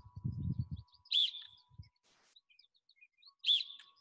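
Coach's whistle blown in two short, sharp blasts about two seconds apart, each one the cue for the next rep of the drill. A low rustling noise runs through the first second, with faint birdsong behind.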